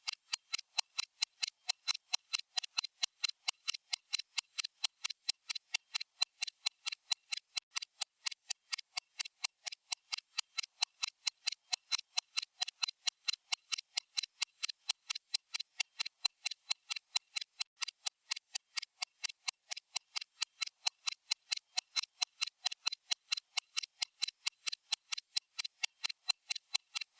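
Stopwatch ticking sound effect: crisp, evenly spaced clock ticks, several a second, at a steady pace and level.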